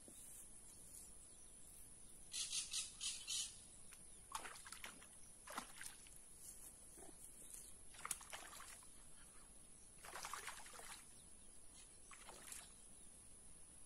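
A hooked monchola (trahira) splashing at the water's surface in several short bursts as it is played on the line, over a steady high insect drone.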